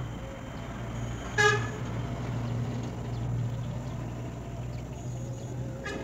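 A motor vehicle's engine running with a steady low hum, and a short horn toot about a second and a half in.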